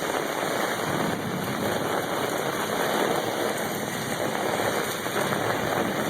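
Torrential thunderstorm rain pouring down, a dense steady rush of water.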